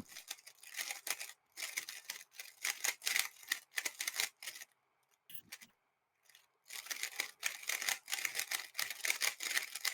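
3x3 speedcube being turned rapidly during a solve: fast runs of plastic clicking and clacking, pausing for about two seconds midway before starting again.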